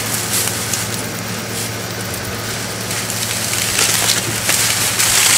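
Dry grass and brush rustling and crackling as a dead wild boar is hauled by its legs through the undergrowth, getting louder near the end, over a faint steady low hum.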